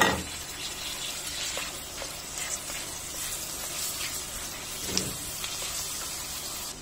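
Sliced onions and tomatoes sizzling in hot oil in a metal pan as they are stirred with a wooden spatula. A loud clatter comes right at the start and a single knock about five seconds in.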